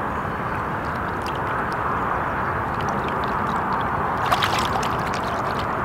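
Lake water sloshing and lapping as a common carp is slipped back from the angler's hands. A few sharper little splashes come about four and a half seconds in, over a steady background rush.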